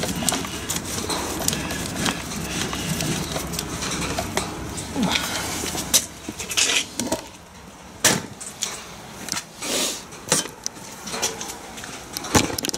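Screwdriver and small metal parts clinking and clattering as a motorcycle battery terminal is bolted up. About six seconds in, the sound breaks into separate sharp knocks and clicks.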